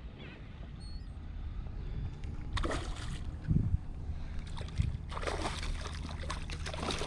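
A hooked fish, taken for a big bluefish, splashing at the water's surface beside a kayak: a short splash about two and a half seconds in, then a longer run of thrashing splashes from about four and a half seconds on.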